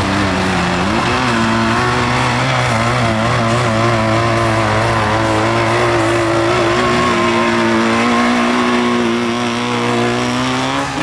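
Tractor engine running hard under load, its pitch wavering and stepping up about a second in, then revving higher near the end.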